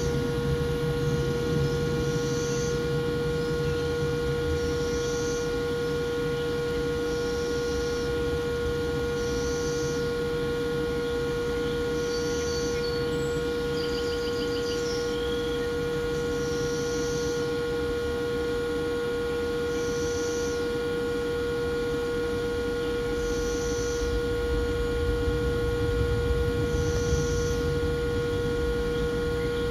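Steady electrical hum with one strong constant tone and a low rumble beneath it, and a faint high chirp repeating every two to three seconds.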